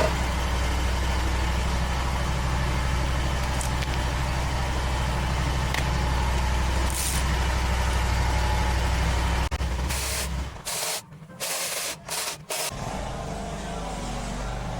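Kawasaki FX850 V-twin mower engine running steadily, its valves freshly adjusted. About ten seconds in, several loud hissing blasts come in quick succession, broken by short silent gaps, and then a quieter steady running sound returns.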